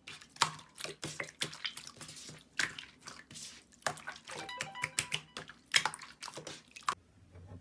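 Slime being squished and pulled by hand, making a quick irregular run of sticky wet clicks and pops that stops shortly before the end.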